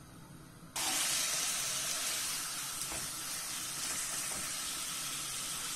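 Chicken strips in a soy-sauce and oil marinade sizzling steadily over high heat in a hot pan. The sizzle starts suddenly about a second in.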